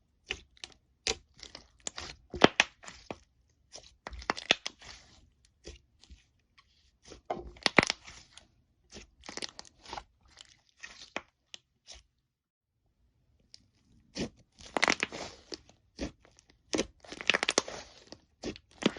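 Crunchy slime being squeezed and pressed by hand, giving clusters of sharp crackling and popping clicks. It falls silent for about two seconds past the middle, then the crackling resumes.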